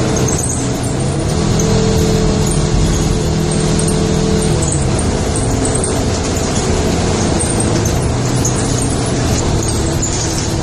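Motor vehicle engine running, heard from inside the cabin, with a steady rumble and hum; its pitch drops about four and a half seconds in.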